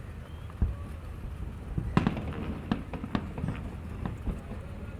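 Aerial fireworks bursting: a string of sharp bangs with rumbling tails, one near the start and most of them bunched between about two and four and a half seconds in.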